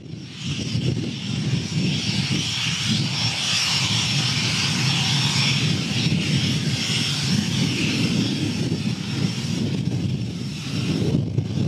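Cessna 510 Citation Mustang's twin turbofan engines whining steadily at low thrust as the jet taxies, with a low rumble underneath. The whine thins out near the end.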